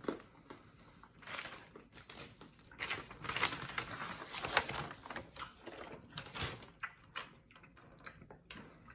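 Rustling and crackling with small clicks and taps as a piece of Sweet Tart candy and its packaging are handled and opened. The rustling is loudest about a second in and again for a couple of seconds from about three seconds in.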